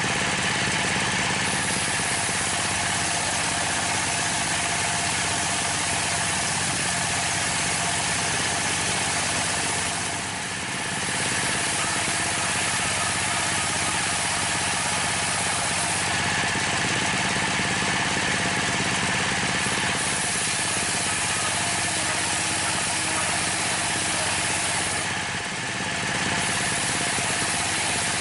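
A single-cylinder Dongfeng (dompeng) diesel engine runs steadily, driving a homemade table circular saw that is ripping a long plank. The engine hum sits under the steady hiss of the blade in the wood, which eases briefly twice, about 10 and 25 seconds in.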